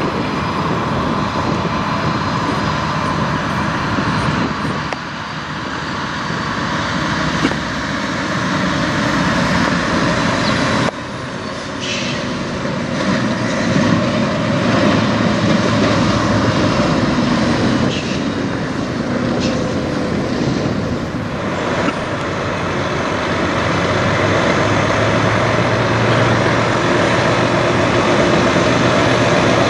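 Highway traffic and a Peterbilt 389 semi truck: diesel engine and tyre noise as the truck drives past at road speed, then its engine running at low revs as it rolls in slowly. The sound cuts abruptly a few times.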